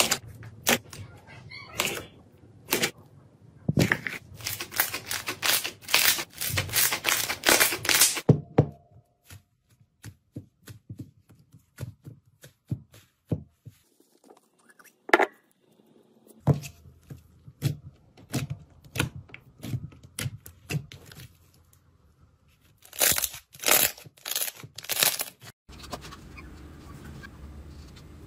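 Slime being squeezed and poked by hand, giving rapid sticky pops and crackles in bursts, with sparser clicks between them.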